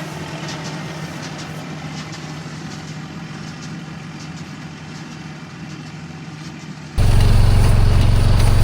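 Engine running steadily with a low, even hum. About seven seconds in the sound jumps suddenly to a much louder, deeper engine drone.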